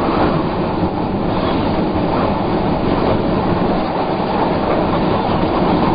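Tornado wind rushing around a storm-chase vehicle: a loud, dense, steady rush with a heavy low rumble, the train-like noise of a tornado heard from inside the vehicle as it is rocked.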